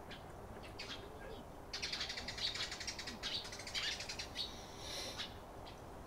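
Eurasian tree sparrows chirping, with a few separate chirps at first and then a quick run of dense, chattering chirps from about two seconds in until about five seconds.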